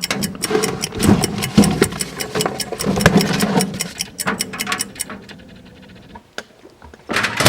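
Fast mechanical clicking over a steady low hum, thinning out to a few separate clicks about five seconds in, with a sharp knock at the very end.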